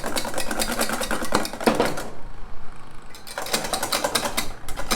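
Egg whites and sugar being beaten by hand, the utensil clicking rapidly against the side of the bowl in two bouts with a short break about two seconds in. The whites are being whipped toward stiff foam for a soufflé omelette.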